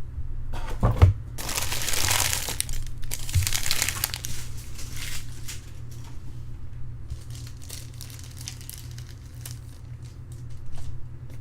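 Plastic or foil wrapper of a trading-card pack crinkling loudly as it is torn open and handled, after a short thump about a second in; lighter crackling follows.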